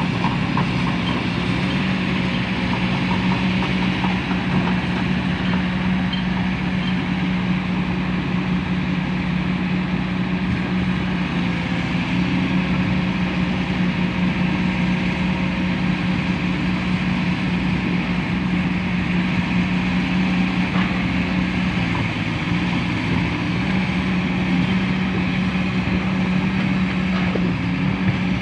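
Diesel engine of heavy construction machinery running steadily, a constant drone that holds one even pitch throughout.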